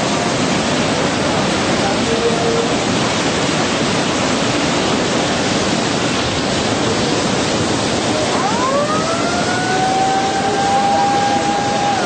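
A steady loud rushing roar. About eight seconds in, a siren winds up, holds one pitch, and starts to fall away at the end.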